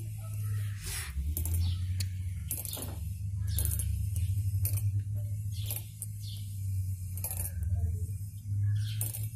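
Small steel pump parts clicking and clinking against each other and a metal tray as a hydraulic PTO pump is assembled by hand, with irregular sharp taps over a steady low hum.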